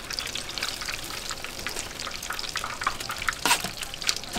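Battered food deep-frying in hot oil: a steady crackling sizzle, with two sharper knocks near the end.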